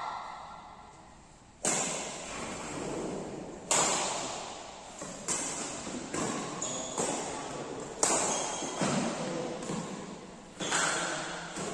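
Badminton rally: rackets striking the shuttlecock back and forth, a sharp crack every one to two seconds, about eight hits in all. Each hit is followed by a long echo off the hall's steel walls and roof.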